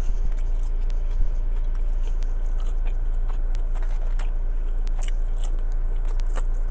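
Close-up biting and chewing of crunchy fried food, a fried chicken sandwich and fries, heard as scattered small crackles and clicks over a steady low hum.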